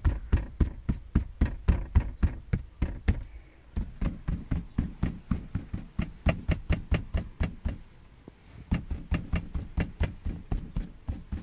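Ford Focus 3 car seat being rocked and pushed by hand, giving a fast run of dull knocks, about three a second, with two short pauses.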